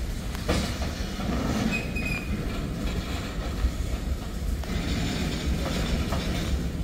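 Freight tank cars rolling past on steel wheels: a steady rumble and clatter over the rails, with scattered knocks and a brief wheel squeal about two seconds in.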